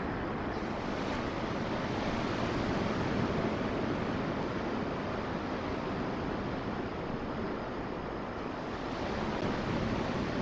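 Surf breaking on the beach: a steady rushing noise that swells and eases slightly.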